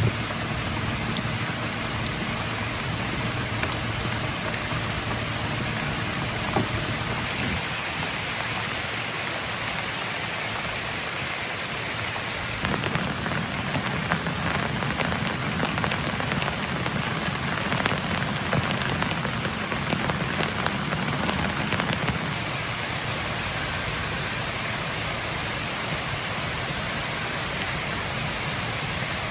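Steady rain falling, with many small sharp drop impacts. The sound changes abruptly about 13 seconds in and again about 22 seconds in.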